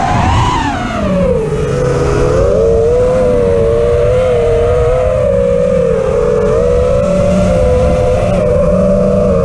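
FPV racing quadcopter's brushless motors whining, heard from the drone itself. The pitch drops about a second in as the throttle eases, then holds fairly steady with small wobbles as the drone cruises low.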